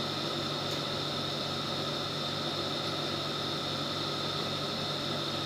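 Fox Domotics FDT-35-S tubular roller-blind motor running with a steady hum, winding the blind up toward its set upper limit.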